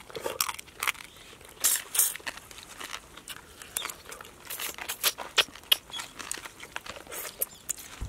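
Crab shells being cracked and crunched by hand and mouth while eating crab curry: short, sharp, irregular crackles and snaps.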